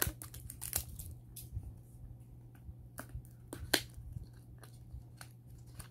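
Clear plastic shrink-wrap crinkling and crackling as it is picked and peeled by hand off a small serum box, in irregular sharp crackles with a few louder ones.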